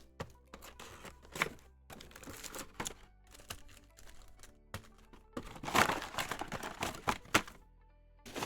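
Foil wrapper of a football trading-card pack crinkling and tearing as it is ripped open by hand, with scattered light clicks; the loudest crinkling comes a little past the middle.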